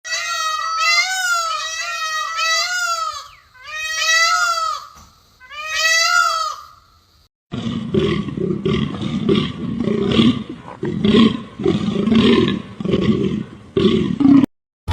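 Two different animal calls. First comes a high, wavering cry of quick rising-and-falling notes in three bursts. Then, after a short gap, comes about seven seconds of low, rough roaring in pulses.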